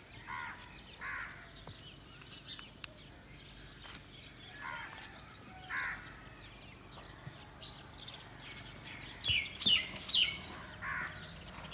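Birds calling: short caw-like calls spaced through, then a cluster of louder, sharper calls near the end, over faint clicks from goats eating grain at a trough.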